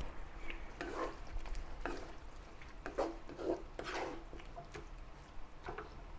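Wooden spatula stirring beef and onions through a thick soy sauce gravy in a wok, in several irregular scraping strokes.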